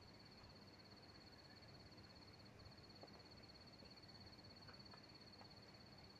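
Near silence: faint outdoor ambience with a steady, high-pitched insect trill that breaks off for a moment about two and a half seconds in, and a few faint ticks.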